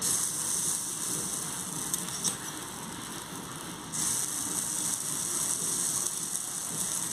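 Dosa batter sizzling on a hot griddle as it is poured and spread with a spoon. The hiss starts suddenly, eases off for a couple of seconds, then comes back strongly about four seconds in, with a light click near two seconds.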